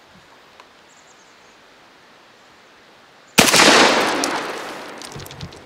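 A single 12-gauge shotgun shot, fired from a magazine-fed shotgun loaded with a Ball and Chain bolo shell (two musket balls joined by a braided cable), about three and a half seconds in. It is sharp and loud, and its echo fades over about two seconds.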